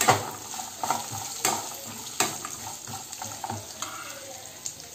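Peanuts, green chillies and onions sizzling in hot oil in a metal kadai while a metal spoon stirs and scrapes them, with sharp clinks of the spoon on the pan at the start and again about one and a half and two seconds in.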